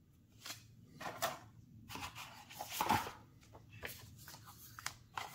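Hands handling model-kit parts and packaging on a cutting mat: a thin brass photo-etch fret and a paper sheet being moved and set down. The result is irregular rustles and light knocks, loudest about a second in and around three seconds in.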